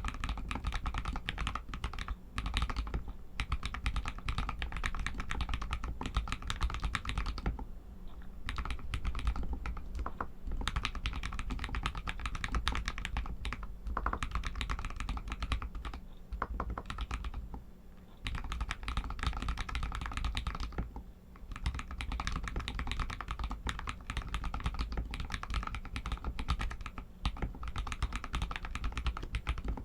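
Typing on an RK61 mechanical keyboard with Outemu red linear switches: a dense, fast run of keystrokes that clacks on, broken by a few short pauses.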